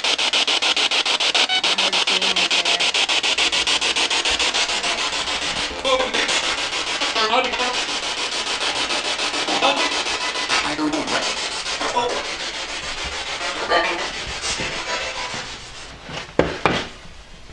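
Spirit box scanning through radio stations: a steady rush of static chopped many times a second, with brief snippets of sound breaking through now and then. The static fades near the end.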